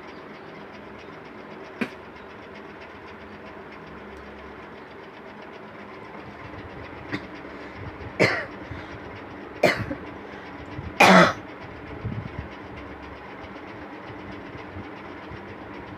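A person coughing deliberately in a few separate hard coughs, the strongest about eight, nine and a half and eleven seconds in, the last one the longest and loudest, with a couple of smaller ones around them. A steady hum from an electric fan runs underneath.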